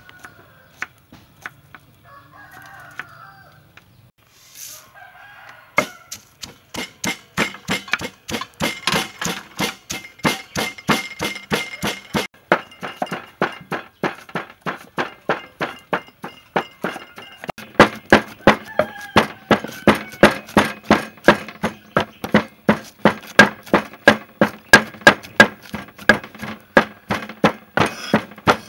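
Cleaver chopping shallots on a thick wooden chopping board: rapid, even knocks about four or five a second, starting about six seconds in and getting louder in the second half.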